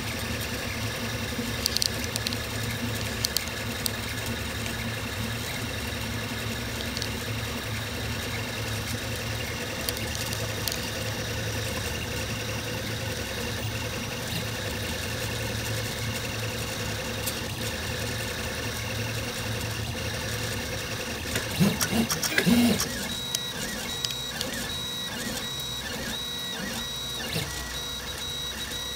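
Velleman K8200 3D printer running a print: a steady hum from its fans and stepper motors. A little past two-thirds through there is a brief louder run of rising and falling motor tones. Near the end the steppers whine in short, rapidly repeated bursts as the print head moves back and forth.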